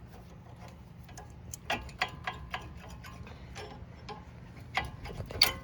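Irregular metallic clicks and clinks of a brake pad and its steel backing being worked off a caliper bracket, some ringing briefly, the loudest about two seconds in and near the end.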